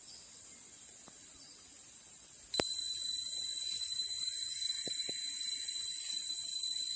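Forest insects droning steadily: a high, hissing chorus that grows sharply louder about two and a half seconds in, when a steady shrill whistle-like tone joins it.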